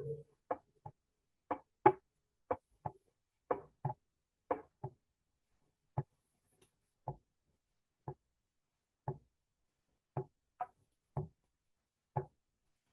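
Recorded heart sounds: the first and second heart sounds ("lub-dub") as pairs of short thumps about once a second, with no murmur between beats. For a few seconds in the middle, only one thump is heard per beat.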